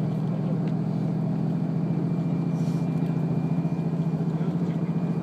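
KiHa 54 diesel railcar heard from inside the cabin while under way: the underfloor diesel engine runs with a steady drone and a fast even pulsing.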